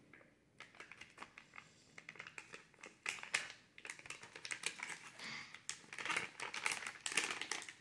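Plastic MRE flameless ration heater bag crinkling and rustling as hands grip its top and reach inside, an irregular run of crackles that grows busier and louder about three seconds in.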